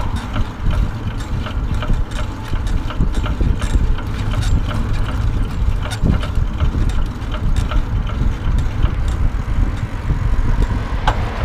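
Wind buffeting the microphone over the low rumble of wheels rolling on asphalt, with quick light rattling clicks from the moving pet carrier.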